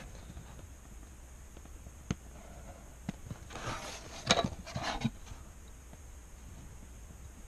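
Paper rustling and a clear plastic ruler being shifted and set down on a sheet of paper, with a few light taps and clicks; the loudest rustling and knocks come about four to five seconds in.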